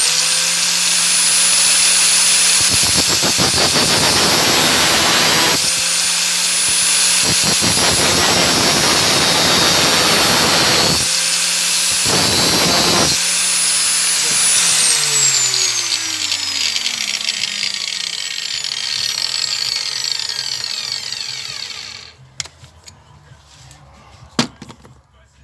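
Angle grinder running at full speed while its thin cutting disc grinds a keeper groove into a steel exhaust valve stem turned by a cordless drill; the grinding comes and goes in several passes. About fifteen seconds in the grinder is switched off and winds down with a falling whine, stopping a few seconds before the end.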